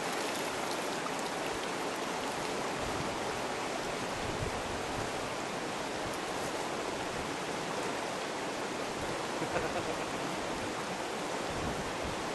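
Shallow river running steadily over stones, an even rush of water.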